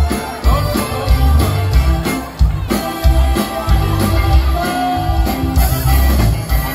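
Live Tejano band playing: accordion, electric guitar and drums over a heavy, pulsing bass, with a man singing into a microphone.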